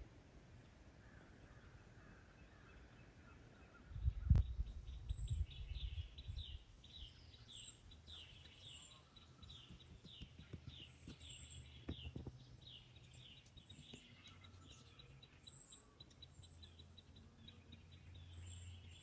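Faint woodland birdsong: a bird repeats quick falling chirps about twice a second, with thin, very high calls throughout. About four seconds in there is a knock, followed by a low rumble that is the loudest thing heard.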